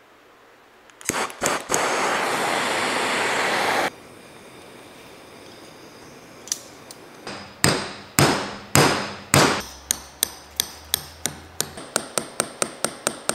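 A handheld power tool runs for about two seconds and cuts off sharply. Then a hammer strikes a punch held in a piston: a few heavy, ringing blows, followed by quick light taps at about four a second.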